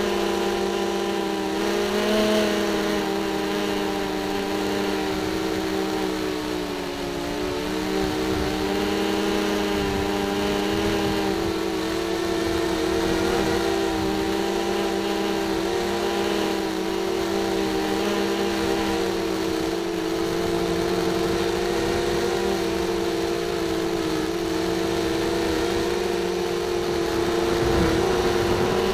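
FPV racing quadcopter's electric motors and propellers whining steadily, heard close up from the onboard camera. The pitch sags briefly about seven seconds in and climbs near the end as the throttle changes.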